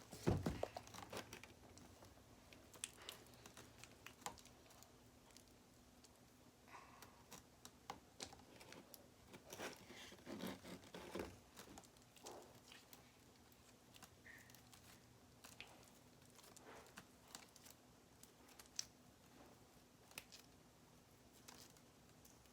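Faint, scattered clicks, crinkles and scrapes of a spoon working glue slime in a cup, with a louder cluster in the first second and another about ten seconds in.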